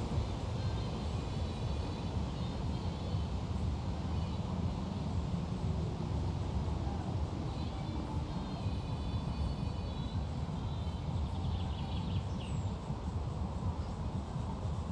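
Steady low outdoor rumble, with faint high tones coming and going twice.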